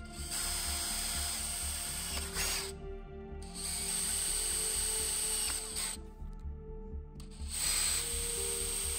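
DeWalt Atomic compact cordless drill running in three bursts of a few seconds each, a steady motor whine, as a number 11 bit opens up existing holes in a metal seat tube.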